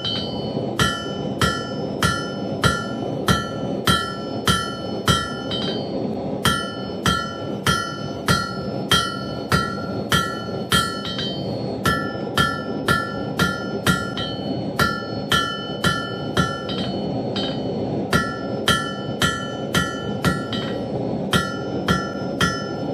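Blacksmith's hammer striking steel on an anvil, about one and a half blows a second in runs broken by short pauses. Each blow leaves the anvil ringing briefly, as it does while not yet remounted, over a steady rushing noise.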